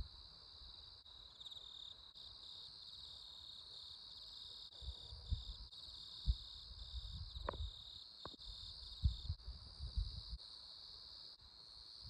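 Steady high-pitched chorus of insects chirring. Low rumbles and buffets come and go underneath.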